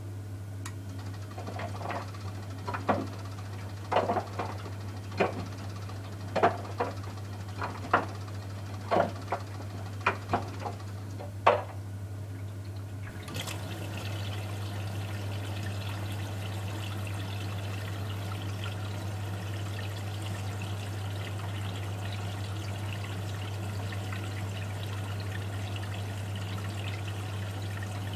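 Miele W 435 front-loading washing machine: about a dozen sharp clicks and knocks come roughly a second apart. About halfway through, a steady rush of water begins as the machine fills, over a constant low hum.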